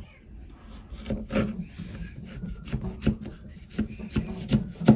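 Kitchen knife scraping and cutting a peeled hard green banana against a wooden cutting board, in a series of short, irregular strokes and taps.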